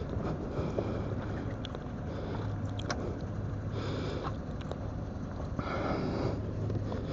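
Riding noise heard from a microphone inside a motorcycle helmet on a Harley-Davidson Tri-Glide: a steady low hum from the V-twin engine under muffled wind and road rush, with a few short breaths.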